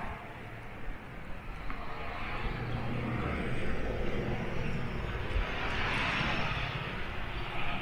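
Engine noise of something large passing: a steady rumble with a hiss that swells to its loudest about six seconds in.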